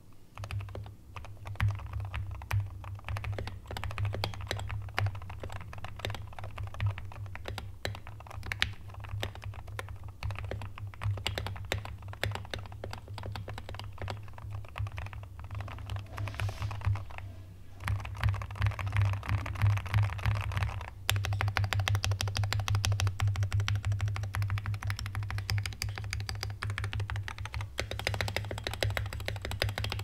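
Continuous typing on a Wooting 60HE keyboard with magnetic Hall-effect linear switches, the switches freshly lubed, giving a rapid run of soft key clacks. There is a brief pause a little past halfway, then faster, louder typing.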